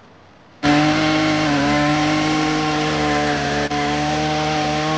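Two-stroke chainsaw running at high, steady revs, cutting into a log; it comes in abruptly about half a second in and holds a nearly even pitch with slight dips as the chain bites.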